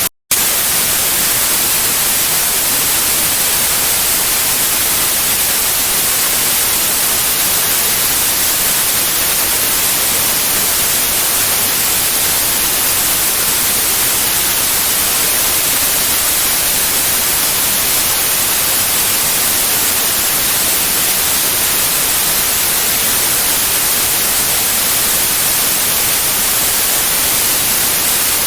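Steady white noise: an even, loud hiss, brightest in the high frequencies, with a split-second gap of silence right at the start.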